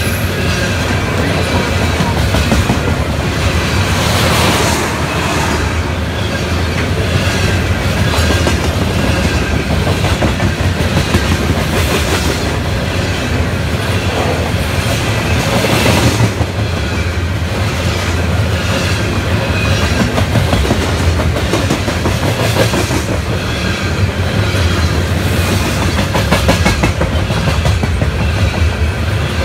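Steel-wheeled coal hopper cars of a freight train rolling past close by: a steady, loud rumble with rapid clicking as the wheels cross rail joints.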